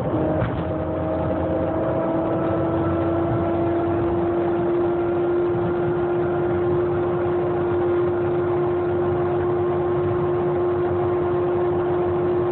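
A vehicle running, with a steady whine over a constant rumble; the whine starts about half a second in and creeps slightly higher in pitch.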